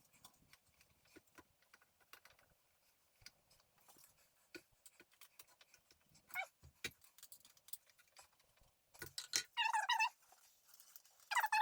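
Scattered light clicks and taps from small parts being handled and fitted, then several short, high, wavering whines from a dog near the end.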